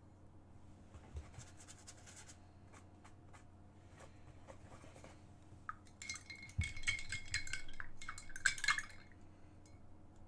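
Light clinking and rattling of glass or dishware, a run of quick taps with a faint ring lasting about three seconds, starting about six seconds in, after a few scattered soft clicks.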